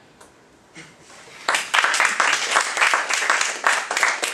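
Audience applauding at the end of a talk, with many quick, irregular claps starting about a second and a half in.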